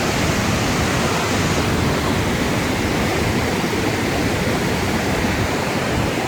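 Flash-flood water rushing down a desert canyon, a loud, steady rush with no letup.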